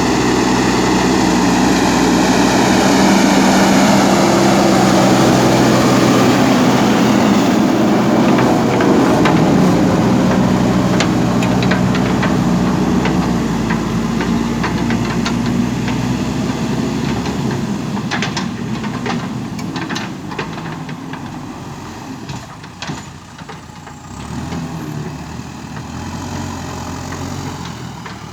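Diesel engine of a JCB backhoe loader running steadily and loud, then easing off and growing quieter in the second half. Many short knocks and clatters come through as it eases off.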